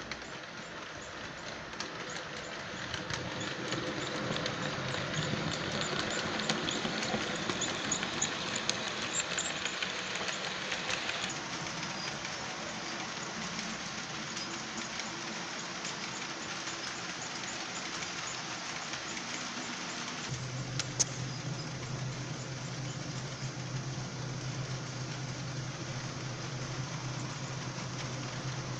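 HO scale brass 2-8-0 model steam locomotive running with a freight train: the Soundtraxx Tsunami2 decoder's steam sound effects play from its onboard speaker, mixed with motor and wheel noise on the track. The sound shifts abruptly about eleven and twenty seconds in, and a steady low hum joins at the second shift.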